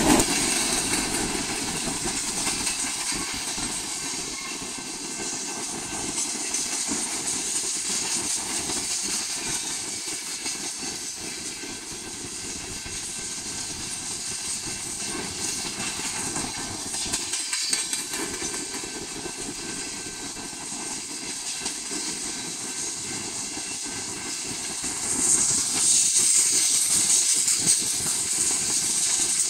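Freight train of covered hopper and tank cars rolling past: a steady rumble and hiss of steel wheels on rail. The hiss grows louder about 25 seconds in.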